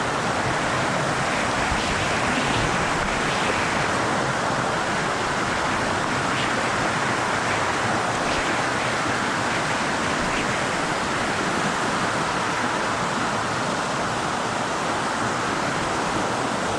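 A waterfall's falling water rushing steadily, a constant, even noise with no breaks.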